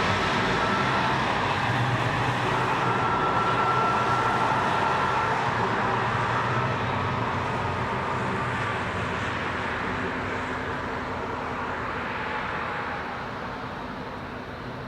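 A tram running on rails with a low hum and a high steady tone in the first half. The sound gradually fades as the tram moves off.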